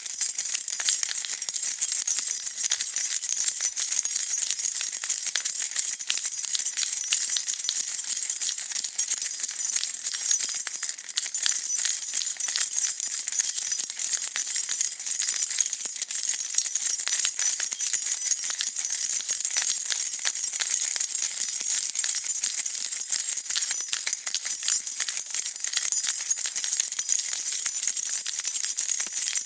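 A bunch of metal keys being shaken and jingling without a break, a dense, bright rattle of many small clinks.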